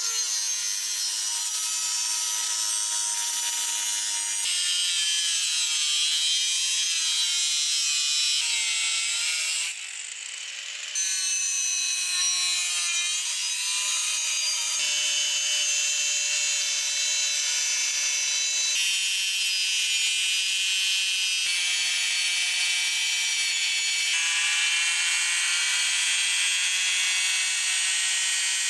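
Electric angle grinder with a thin abrasive cut-off disc cutting through rusty plow steel: a loud, steady high whine with a rasping edge, its pitch sagging and recovering as the disc bites into the metal. It goes briefly quieter about ten seconds in.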